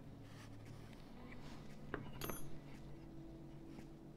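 Faint plastic clicks as a metal pry tool works the plastic housing of a Nokia 1616-2 phone apart, with a short cluster of clicks about two seconds in, over a faint steady low hum.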